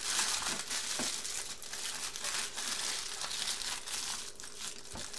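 Aluminium foil being folded and pressed by hand around a packet, a continuous crinkling that thins out toward the end, with two soft knocks, about a second in and near the end.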